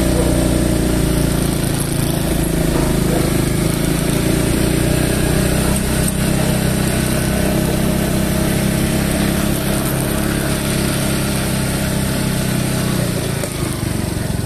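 Motor scooter engine running steadily while riding, with wind and road noise across the microphone. The engine note drops away near the end as the throttle eases.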